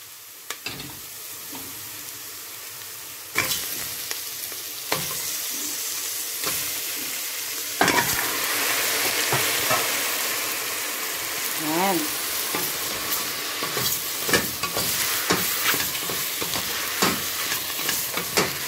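Onions frying in oil in a stainless steel pan, with a wooden spatula knocking and scraping as it stirs. About eight seconds in the sizzle grows much louder as raw chicken pieces go into the hot pan, and the stirring goes on.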